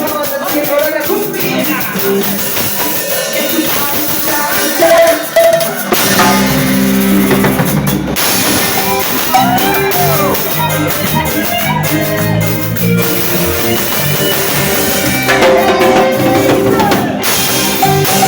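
Live cumbia band playing with a prominent drum kit; the bass and full band come in heavier about six seconds in.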